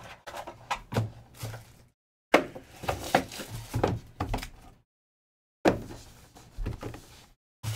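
Cardboard Panini Impeccable hobby box being handled: the box and its inner tray slide, tap and knock against the table in three bursts separated by short silences, the sharpest knocks a little over two seconds in and again about five and a half seconds in.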